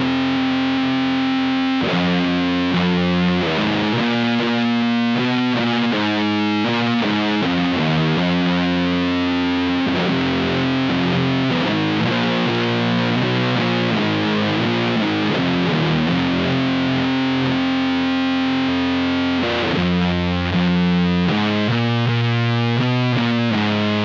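Electric guitar, a 1993 Epiphone G-400 on its bridge pickup, played through a Magic Pedals Cthulhu Fuzz, a one-knob high-gain silicon fuzz, into a Matamp GT120 amp: a heavily fuzzed slow riff of long held notes broken by quicker note changes.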